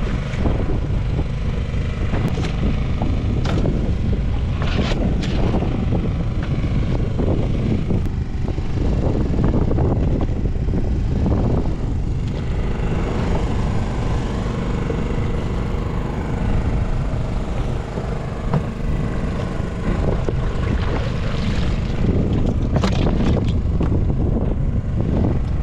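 Fishing boat's engine running steadily, a low rumble with a faint hum, with a few knocks on the deck.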